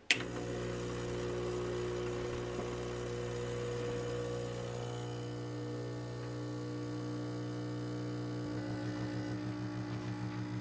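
Gaggia Classic espresso machine's vibratory pump humming steadily as it pulls an espresso shot. It switches on suddenly at the start, and in the last couple of seconds the hum takes on a fast pulsing flutter.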